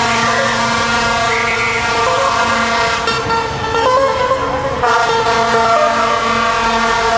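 Vehicle horns held in long, steady blasts over the noise of passing traffic, breaking off briefly about three seconds in and changing pitch near five seconds.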